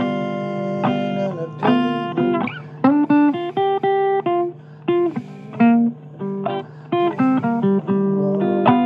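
Blues guitar playing single plucked notes and short runs, with a few notes bent or slid in pitch.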